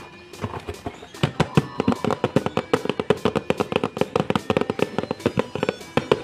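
Background music with a fast, busy percussive beat.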